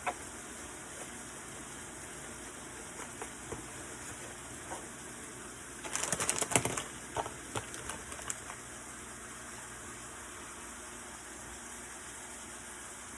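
Shrimp sizzling in a frying pan, a steady hiss, with a short burst of clattering about six seconds in as a utensil works the pan.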